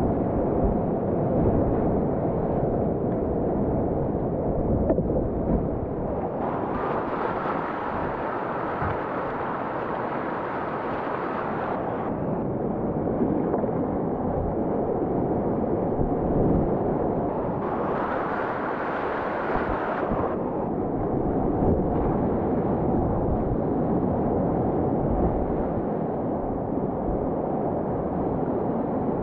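Rushing whitewater, a steady rumbling noise with wind buffeting the microphone. A brighter hiss of splashing water rises between about six and twelve seconds in, and again around eighteen to twenty seconds.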